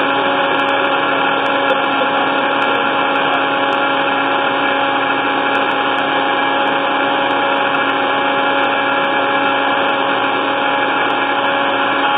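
Countertop blender running at a steady speed, its motor whine and whir unchanging throughout.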